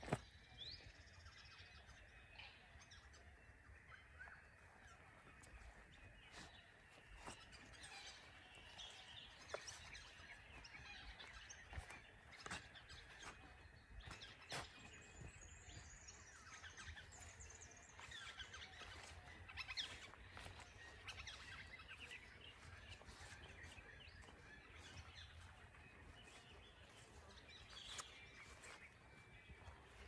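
Faint chorus of birds calling and chirping, with the honking calls of swans among them, over a soft low rumble.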